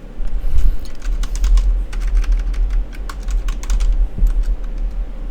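Typing on a computer keyboard: a quick, irregular run of key clicks over a low rumble, as a chat message is typed out.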